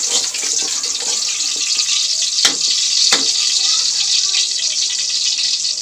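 Cooking oil sizzling in a wok on a gas stove, a steady high hiss, with two sharp clicks about half a second apart near the middle.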